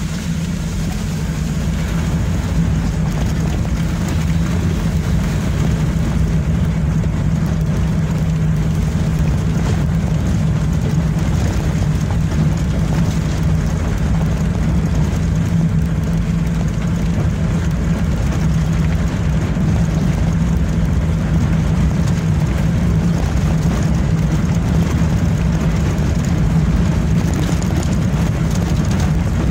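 Vehicle engine running steadily while driving along a rough road, a constant low drone over road noise. It picks up a little in the first couple of seconds.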